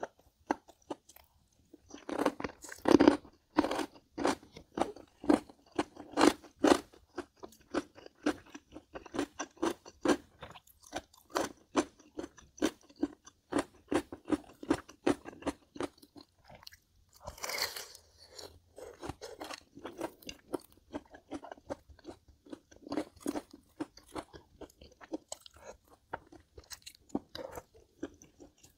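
Close-miked chewing of crunchy food: a dense, irregular run of crisp crunches, loudest a few seconds in, with one short noisier burst a little past halfway.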